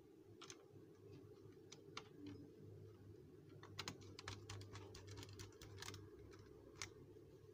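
Faint clicks of a small screwdriver turning a screw into an HP ProBook laptop's plastic base: a few single clicks, then a quick run of clicks about halfway through.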